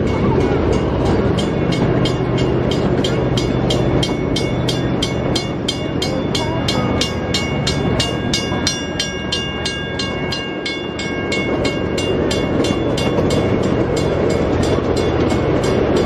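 Ride-on miniature train rolling along its track: a steady rumble of the cars with regular clicking, about three clicks a second.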